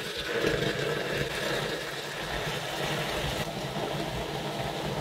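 Piranha solution (sulfuric acid and hydrogen peroxide) bubbling and fizzing violently as more hydrogen peroxide is poured in: a steady, crackling rush of gas from the foaming reaction as it breaks down the chicken into CO2.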